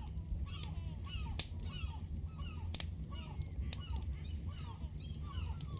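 Campfire sound effect crackling, with irregular sharp pops and snaps, over a background of many short, falling bird calls and a steady low rumble.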